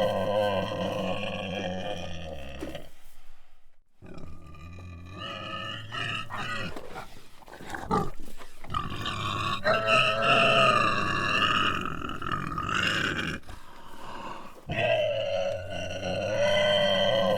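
Agitated pig grunting and squealing in a run of harsh, pitched calls. There is a short break about three seconds in, and a longer, higher squeal past the middle.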